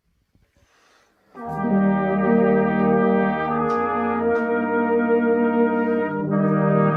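Brass band coming in about a second and a half in after near silence, playing slow sustained chords that change every second or two.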